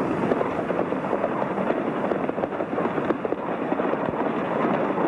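Horses galloping over rocky ground: a steady, dense clatter of hoofbeats with a rushing noise behind it.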